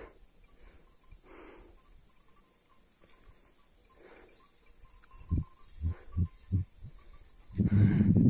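Steady high-pitched chirring of insects in grassland. About five seconds in come a few short low thumps, and near the end a louder low rumble.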